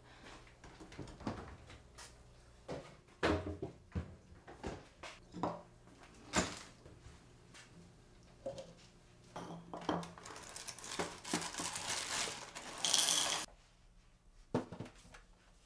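Dishes and cutlery clinking and knocking in a kitchen: a string of separate sharp knocks, then a denser stretch of rustling, clattering noise that stops suddenly near the end.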